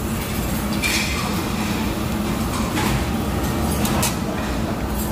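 Steady low rumble of restaurant background noise, with a few light clinks.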